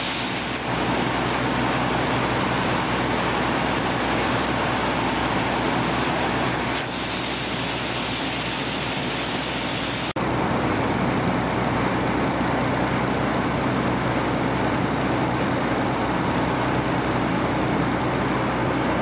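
Sightseeing boat's engine running steadily under the rush of its churning wake and wind, with a brief break about ten seconds in.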